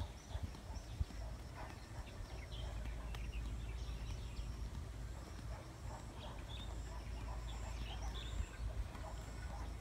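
Outdoor field ambience: wind buffeting the microphone as a steady low rumble, with scattered short bird chirps and a single knock about a second in.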